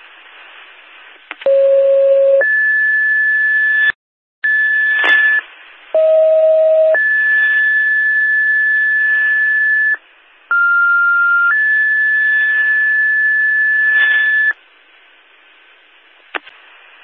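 Fire-dispatch two-tone pager alert over a scanner radio: three sequences, each a short lower steady tone of about a second followed by a longer, higher steady tone, setting off the stations' pagers for the dwelling-fire call. A short radio click comes between the first two sequences and another near the end.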